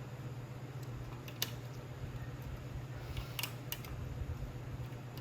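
A few light, sharp clicks as a throttle cable and its return spring are worked into a small two-stroke engine's carburetor throttle linkage, over a steady low hum.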